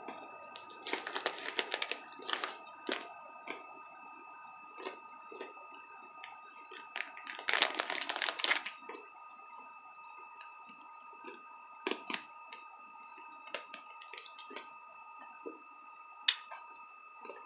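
Crunching and chewing on Skor minis, small chocolate-covered candy pieces, as sharp crackly clicks. About seven and a half seconds in, the candy package crinkles loudly for about a second.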